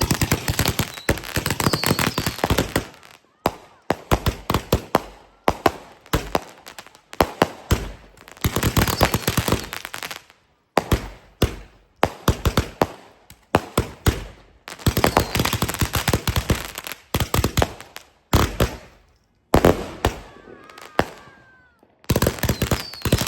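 Consumer fireworks going off: rapid volleys of sharp bangs and crackling, coming in bursts of a second or two with short pauses between them.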